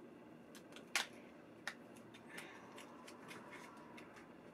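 Small cardboard mascara box being opened by hand: a sharp click about a second in, another a little later, then light scraping and rustling of the paper packaging.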